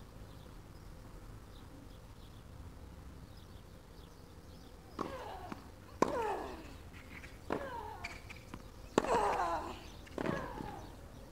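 Tennis rally: about five sharp racket strikes on the ball, starting about five seconds in and coming every second to second and a half, each with a short grunt from the player that falls in pitch. Before the rally, a low, steady court background.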